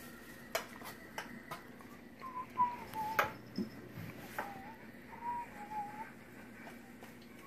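Whistling: two short whistled phrases, each wavering and dipping in pitch, with a few sharp clicks and taps between them, the loudest click about three seconds in.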